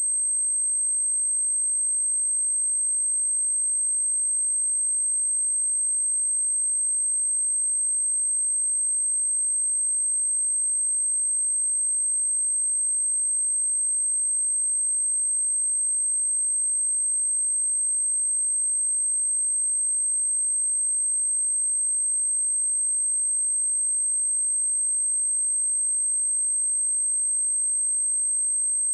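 Steady pure sine tone at 8312 Hz, a single high-pitched whine held at an even level without a break: a speaker test and speaker-cleaning tone.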